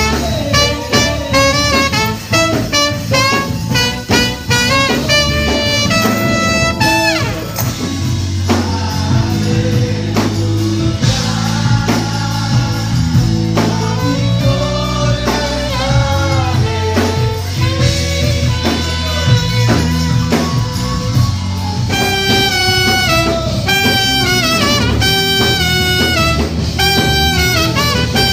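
Live band music led by a trumpet and a saxophone playing lines together over drums and a low bass line. The horns play quick, short notes at first, hold longer notes through the middle, and return to short punchy phrases that step downward near the end.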